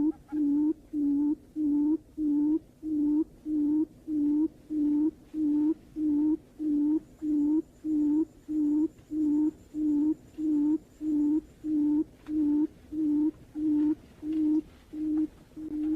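Barred buttonquail call, as used for a lure: a low hoot repeated steadily about twice a second, each hoot with a faint short higher note.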